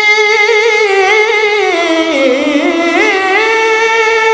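A solo male voice singing an Urdu manqabat into a microphone, holding one long, drawn-out note with wavering ornaments. The pitch dips lower about two seconds in and climbs back to a steady held note about a second later.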